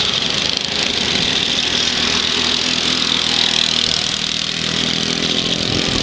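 Racing lawnmower engines running steadily, a continuous engine sound under a strong hiss.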